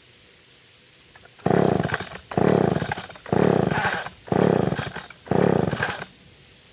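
McCulloch chainsaw being pull-started: five quick pulls on the recoil starter cord, about one a second, each a short burst of the engine turning over that fades away without the engine catching.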